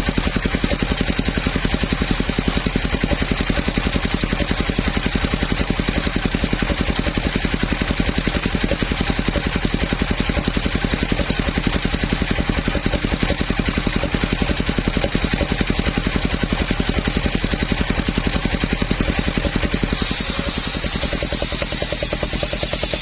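Engine-driven homemade circular sawmill running steadily, with a fast, even pulsing beat. About twenty seconds in the sound changes: the low beat weakens and a bright, hissing high sound joins it.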